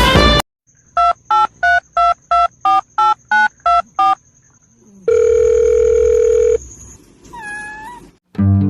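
Telephone keypad dialing: ten short beeps, about three a second. A steady tone of about a second and a half follows, then a short tone that wavers in pitch.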